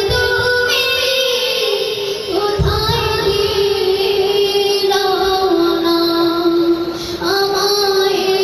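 A boy singing a Bengali gojol (Islamic devotional song) into a microphone, holding long notes that slide from pitch to pitch, with short breaths between phrases about two and a half and seven seconds in.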